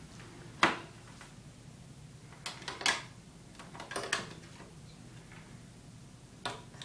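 Plastic stylus of a child's toy magnetic drawing board tapping and clicking against the board as she draws, a handful of sharp clicks spread unevenly through, over a faint steady low hum.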